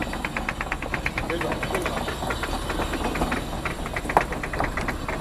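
A motor-driven winch hauling a fishing net up on a rope over a pulley block: a rapid, even clicking of about ten clicks a second over the boat engine's steady low rumble.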